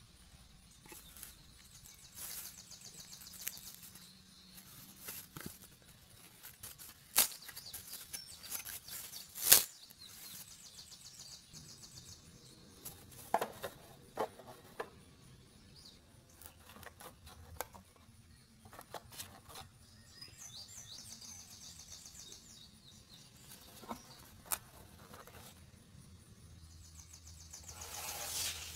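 Card pieces of a 3D puzzle model being handled and pressed into place: light rustling and scraping with scattered taps and clicks, and two sharper knocks in the first third.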